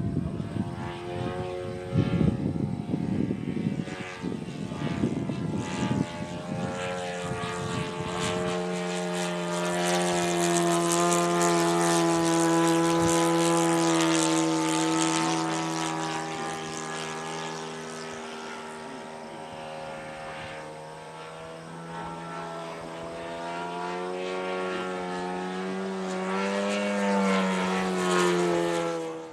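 Radio-controlled model Hawker Hurricane's engine and propeller droning in flight, the steady pitch drifting and the sound swelling and fading as the plane passes overhead, then cutting off abruptly at the end.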